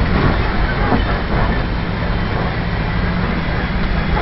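Open-sided safari truck driving along a rough dirt track, heard from a seat on board: a steady engine drone and heavy road rumble.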